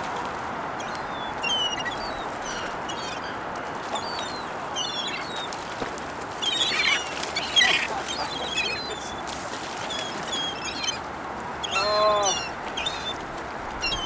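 A flock of gulls calling as they wheel overhead: many short, high cries, thickest about halfway through, over a steady background hiss.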